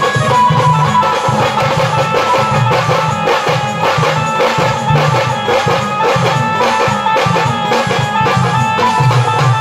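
Live band music: a group of drums slung at the waist is beaten with sticks in a fast, steady rhythm, with a melody line playing over it.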